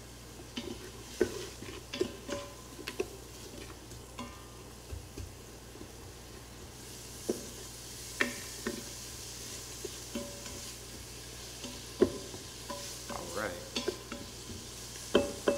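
Diced onions sizzling in hot coconut oil in an Instant Pot's stainless steel inner pot on sauté, stirred with a wooden spoon that knocks against the pot at irregular moments. The sizzle gets clearer about halfway through, and the loudest knocks come near the end.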